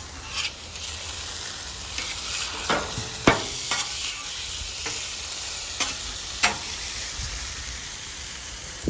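Ground beef frying on a 28-inch Blackstone flat-top griddle: a steady sizzle, broken by about half a dozen sharp metal clicks and scrapes of a spatula stirring the meat on the steel.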